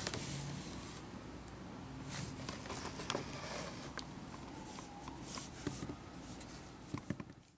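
Small plastic toy figures being handled and set down on a wooden tabletop: a few light clicks and taps spread out over a faint room hiss, a couple of them louder near the end.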